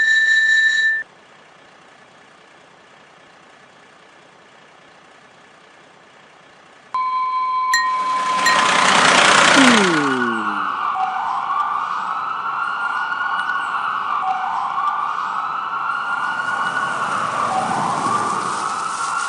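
A short beep, then a rush of noise, then a toy fire engine's electronic siren wailing, rising and falling about every three seconds.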